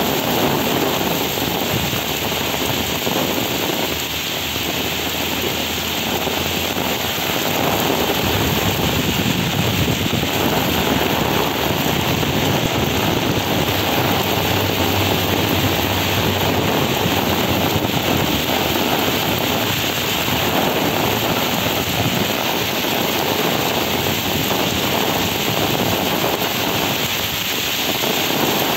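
Heavy rain pouring down onto paved ground and grass, a dense, steady hiss of falling water.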